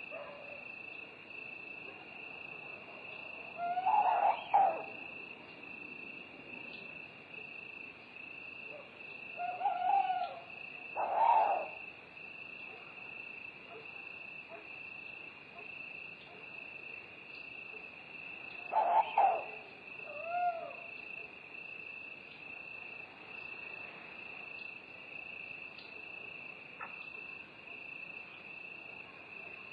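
Crickets chirring in a steady, high, unbroken trill, with an owl hooting over it: three times a pair of short hoots.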